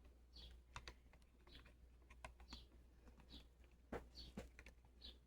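Faint, irregular light clicks and taps of small objects being handled, a little busier about four seconds in.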